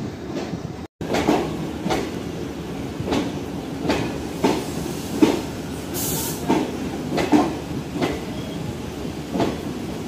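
Tirupati–Sainagar Shirdi Express coaches rolling slowly into the station, their wheels clacking over rail joints about twice a second over a steady rumble. A brief hiss comes about six seconds in.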